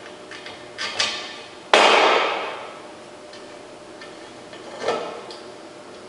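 Handling noises at a workbench as force gauges and their mounting parts are fitted: a couple of light knocks about a second in, a louder sudden clatter just before two seconds that fades over most of a second, and another knock near five seconds.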